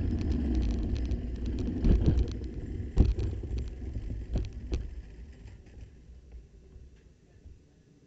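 Racing kart slowing to a stop: a low rolling rumble broken by a few sharp knocks, about two, three and four and a half seconds in, fading away over the last few seconds.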